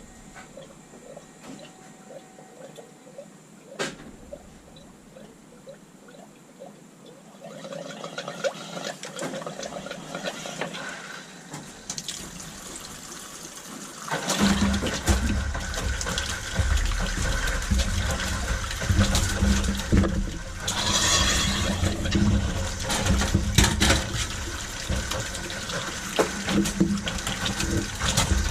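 Water running through newly repiped PEX supply lines and out of a fixture as the house's water is turned back on. It is faint at first, builds about a quarter of the way in, and is much louder from about halfway, with scattered clicks and knocks.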